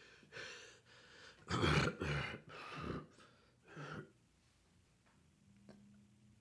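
A man grunting, clearing his throat and breathing hard in four short bursts, the loudest about two seconds in, from the burning heat of a Carolina Reaper pepper he has eaten. Then only a faint low hum.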